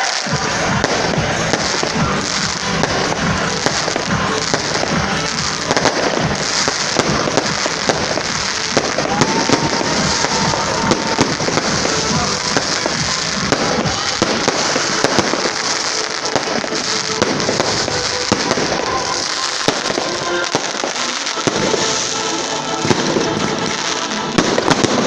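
Fireworks display: a dense, continuous run of bangs and crackling from exploding shells, going on without a break.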